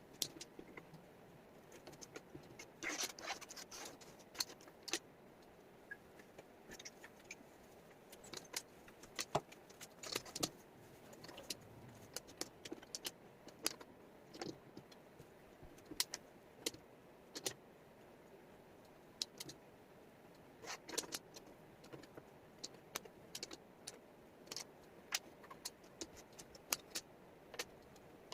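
Wooden jigsaw puzzle pieces clicking and clattering against each other and the table as they are handled. The clicks come irregularly, with short rattling flurries about three seconds in and again about twenty-one seconds in.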